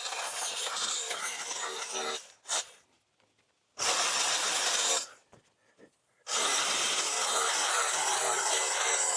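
Stihl battery-powered mini pruning chainsaw cutting through woody brush and branches in bursts. It stops twice for a second or so and then cuts again.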